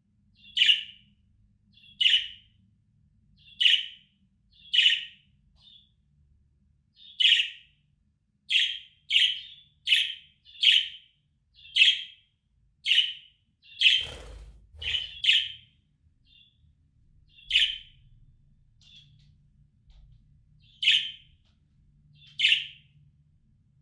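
Budgerigar giving short, sharp contact calls, roughly one a second, with a pause of a few seconds past the middle. A brief rustling noise comes just before the pause.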